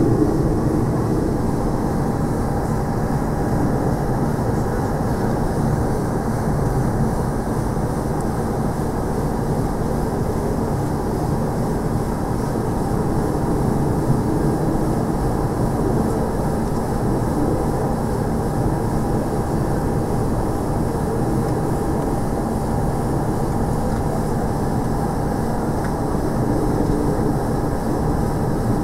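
Steady engine and cabin rumble inside an airliner taxiing along the runway after landing, with a faint steady hum.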